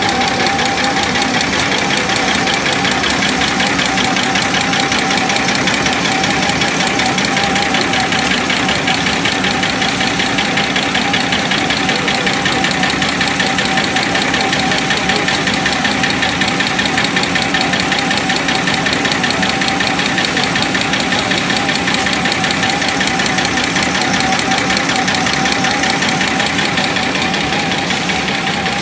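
Semi-automatic napkin paper folding machine running steadily: a fast, even mechanical clatter over a steady whine.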